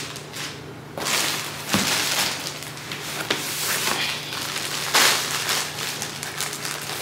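Clear plastic poly bag and packaging rustling and crinkling as it is handled and pulled open, in irregular crackles starting about a second in.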